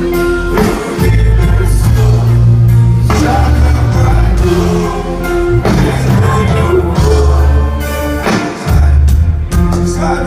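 Pop music with a heavy bass line and a steady beat, with a vocal line in it.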